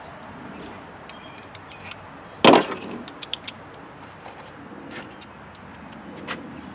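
Hand tools and bolts clinking while the cover under a mower deck is bolted back on. One loud knock comes about two and a half seconds in, followed by a quick run of sharp metallic clicks and a few more scattered clicks later.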